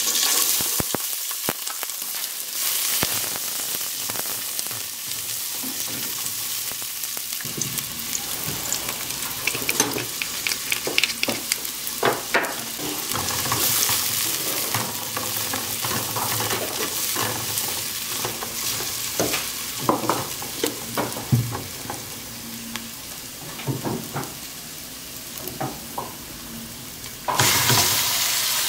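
Chopped onion and garlic sizzling in hot oil in an aluminium pot, stirred with a spatula that scrapes and taps against the pot. Near the end the sizzle jumps louder as pieces of raw beef go into the pot.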